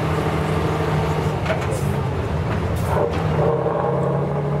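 Tatra 813 8x8 military truck's diesel engine running with a steady low note as the truck drives past over sandy ground.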